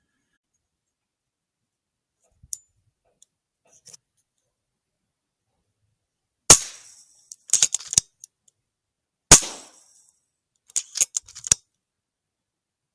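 Two shots from a .22 FX air rifle at 32 ft-lb, sharp cracks about three seconds apart, each followed about a second later by a quick run of metallic clicks as the action is cycled to load the next pellet.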